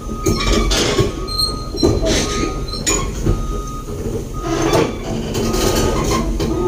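Crawler excavator running and travelling, its steel tracks clanking and squealing, with a steady high whine under the clatter.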